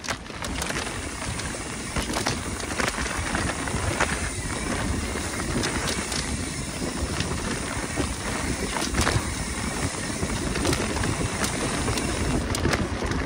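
Mountain bike riding fast down a dirt singletrack, heard from a handlebar-mounted camera: steady tyre and wind noise with frequent rattles and knocks from the bike over the rough ground.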